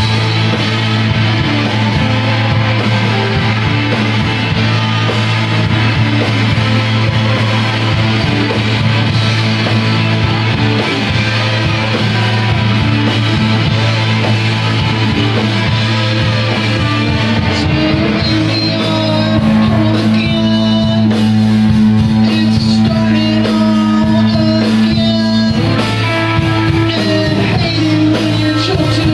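Rock band playing live, with loud, distorted electric guitars over a steady low droning note. About two-thirds of the way through, the low drone drops out and a higher held note takes over for several seconds.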